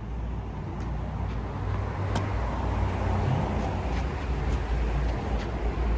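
Steady low rumble that slowly grows louder, with a few faint sharp knocks scattered through it.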